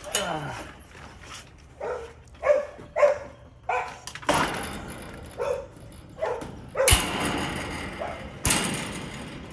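An American Bully dog gives several short, separate barks. A rustling noise comes in partway through, and there are two sharp knocks in the second half.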